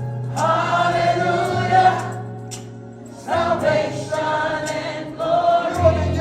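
Live gospel choir singing with band accompaniment: two held sung phrases, the second starting about three seconds in, over a steady bass.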